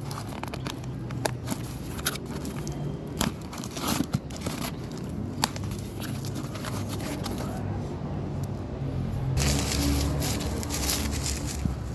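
Packaging being opened by hand: crinkling and tearing of wrapping, with scattered clicks and scrapes, and a louder stretch of rustling about two-thirds of the way through.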